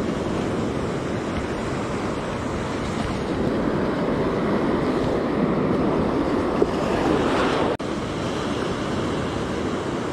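Ocean surf washing ashore, a steady rush of waves with wind on the microphone, swelling a little about seven seconds in.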